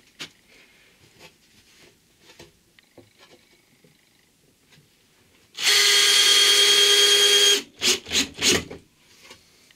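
Power drill running steadily with a whine for about two seconds, then three quick short bursts. Light knocks from handling the wood come before it.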